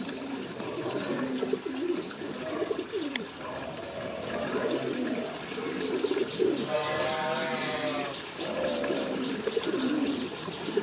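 Pigeons cooing repeatedly, low wavering coos one after another.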